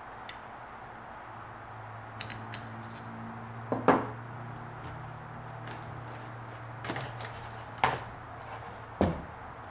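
Metal clicks and knocks of a GMC Terrain wiper transmission linkage being handled and fitted onto its wiper motor. The sharpest knocks come about four, eight and nine seconds in, over a low steady hum.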